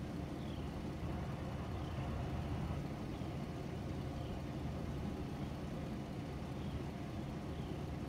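Steady low rumble, with a faint, short, high chirp dropping in pitch about once a second, typical of a bird calling repeatedly.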